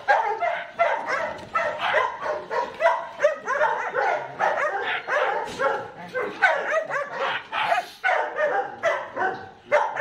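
Belgian Malinois yelping and barking in a rapid, unbroken string of short high cries, several a second, as it strains against being held by the neck for a microchip implant.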